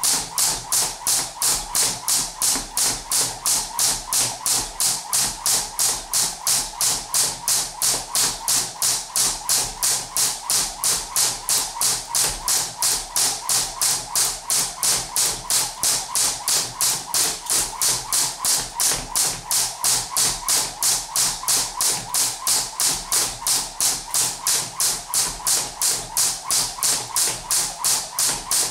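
Crossrope jump rope slapping the floor on every turn, a steady, even rhythm of about three slaps a second.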